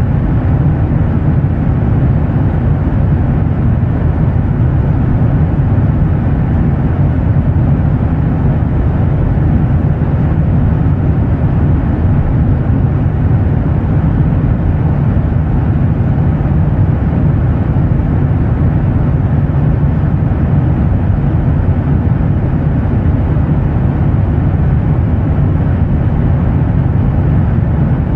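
Airliner jet engine noise: a steady, deep drone that stays even throughout, with most of its weight in the low end.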